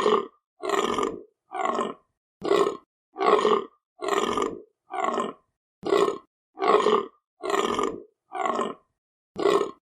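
Deer calling in a long series of short, rough grunts, a little more than one a second, each call about half a second long.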